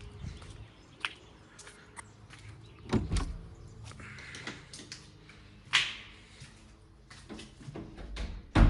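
Wooden house door being opened and shut: sharp handle and latch clicks about one and two seconds in, a dull thud about three seconds in, and a louder thud near the end.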